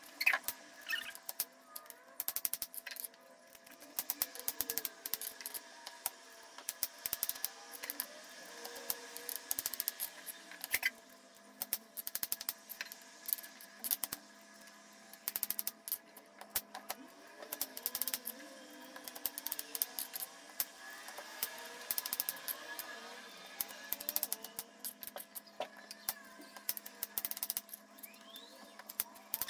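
Kitchen knife cutting a peeled green apple into cubes on a plastic cutting board: irregular taps and clicks of the blade meeting the board, with quiet slicing through the apple flesh.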